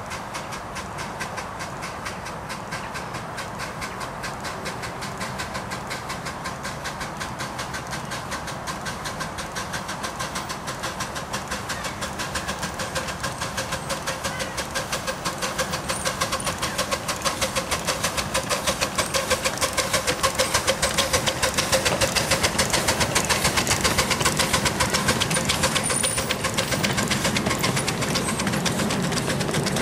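Miniature steam locomotive hauling a passenger train, its rapid, even chuffing beats growing steadily louder as the train draws near.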